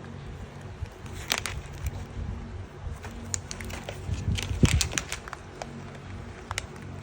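A house cat eating, its chewing heard as irregular crunching clicks that come thickest about four to five seconds in, over a low steady hum.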